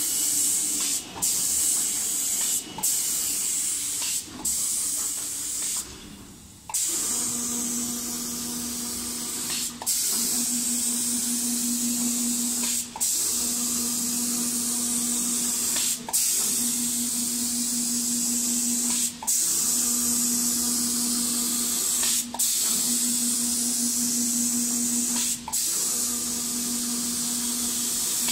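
Automatic spray guns on a 5-axis CNC paint-spraying machine hissing steadily as they spray a wood door, cutting off briefly about every one and a half seconds and then, after a pause of about a second, about every three seconds. From about seven seconds in, a steady low machine hum runs with the spray and breaks off at the same moments.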